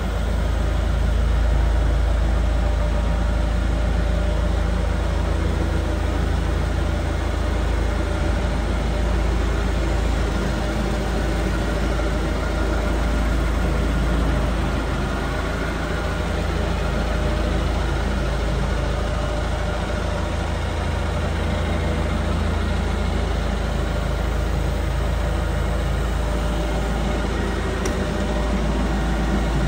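JCB TLT30G Teletruk's LPG-fuelled engine idling steadily, a deep even drone.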